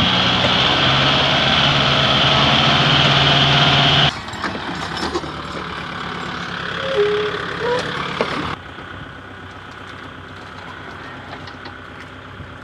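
Tractor diesel engines running, in three short clips cut together: loud and steady for about four seconds, then a quieter stretch with a few brief tones, then quieter still.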